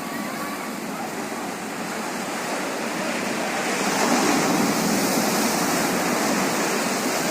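Sea surf washing onto a beach, a steady rush of breaking waves that swells louder about four seconds in.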